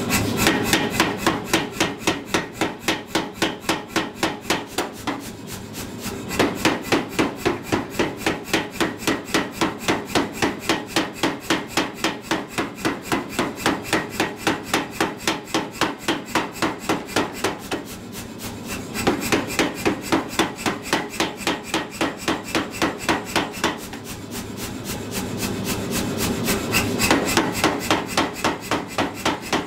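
Say-Mak self-contained air power hammer pounding a hot 4140 steel bar in a fast, even run of blows, about four or five a second, drawing the bar down to a smaller square. The blows ease off briefly three times as the bar is turned and repositioned.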